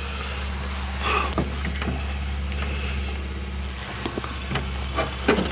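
Steady low mechanical hum with a few light clicks and knocks scattered through it.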